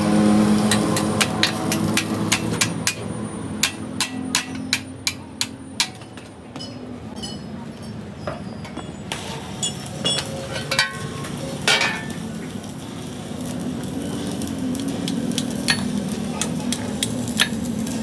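Hammer striking metal during truck axle repair work: a quick run of sharp blows, about two to three a second, for the first few seconds, then scattered knocks. A low steady hum runs underneath.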